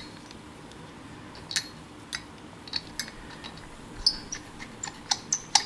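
Scattered small clicks and light metallic clinks as the pulley, washer and nut are handled and threaded by hand onto an alternator's shaft, one clink about four seconds in ringing briefly.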